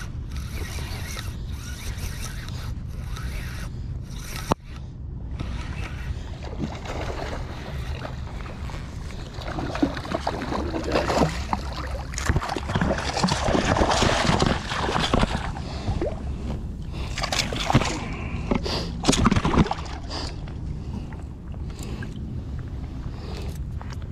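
Surf washing and water sloshing around an angler's legs, over a steady low rumble of wind on the microphone, growing louder and more splashy in the middle as a hooked striped bass is worked in through the shallows. A single sharp click about four and a half seconds in.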